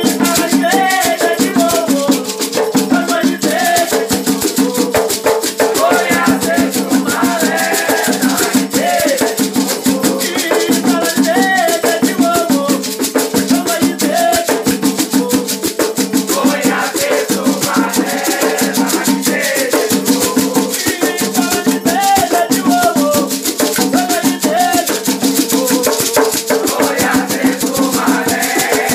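Afro-Brazilian batuque ritual music: voices chanting a song over a fast, steady rattle of shakers and percussion.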